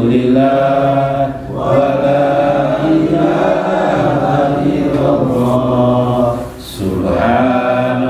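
A man's voice chanting Arabic zikr through a microphone in long, drawn-out melodic phrases, with short breaks about one and a half seconds in and near the end.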